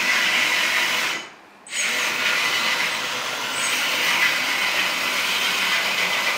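Hydraulic pump of a 1/14-scale JDMODEL EC360 V2 RC excavator, which has no sound module, running with a steady whine as the boom and bucket are worked. It cuts out for about half a second a little over a second in, then runs again.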